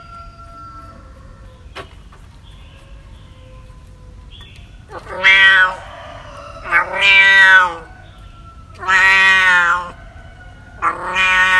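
A cat meowing: after a quieter stretch with one faint click, four loud, drawn-out meows come about two seconds apart, starting about five seconds in.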